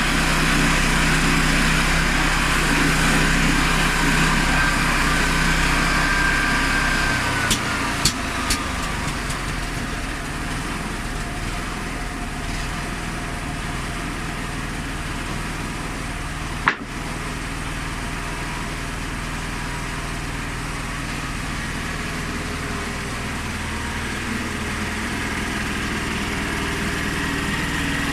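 Honda GX390 single-cylinder petrol engine on a homemade portable sawmill, running steadily. About seven seconds in, a high whine falls away and the sound gets slightly quieter. A few sharp clicks follow, and there is a single sharp knock around the middle.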